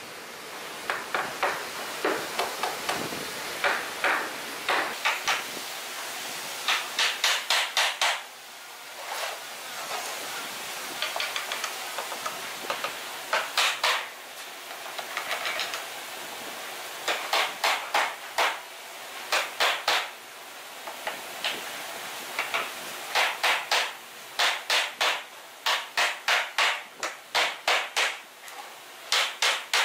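Hammer striking a wooden frame in quick runs of about four to six blows, with pauses of a second or more between runs.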